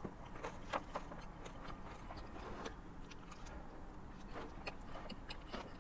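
Quiet eating sounds: faint, irregular clicks of a fork picking at salad in a plastic takeout container, and chewing, over a low steady hum.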